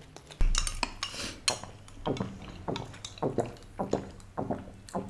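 A string of short clinks and light knocks from dishes, cutlery and a drinking glass being handled.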